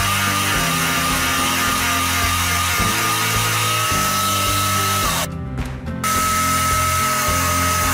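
An electric jigsaw mounted under a homemade plywood table, running and sawing through a piece of plywood, with a steady high whine over the rasp of the cut. It plays under background music with slow changing chords. The saw sound breaks off for under a second about five seconds in, then returns.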